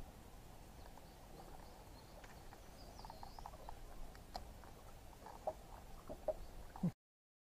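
Faint, scattered clicks and taps from handling a caught bass and unhooking it by hand, over a low steady outdoor rumble, with a brief high chirp about three seconds in. The sound cuts off abruptly near the end.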